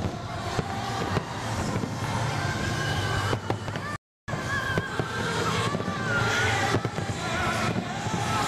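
Fireworks bursting in a rapid, irregular series of bangs and crackles, with a few wavering whistle-like tones over the din. The sound cuts out completely for a fraction of a second about four seconds in.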